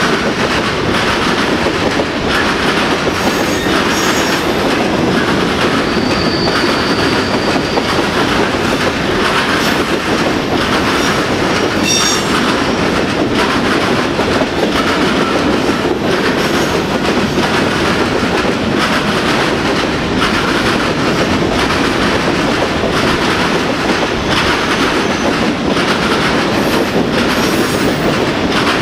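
Freight train of empty covered hopper cars rolling past at close range: steady, loud rumble and clickety-clack of the wheels over the rail joints. A thin high squeal sounds for about a second and a half around six seconds in, and another short squeal comes near twelve seconds.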